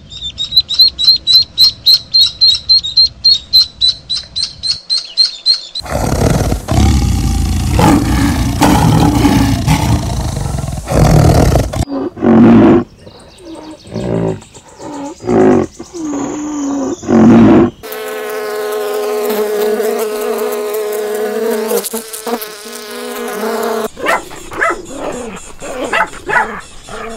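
A run of different animal calls that changes about every six seconds. It opens with domestic ducks quacking rapidly, then comes a loud low call, then shorter separate calls, then a steady buzzing drone. Near the end small dogs yap in quick short bursts.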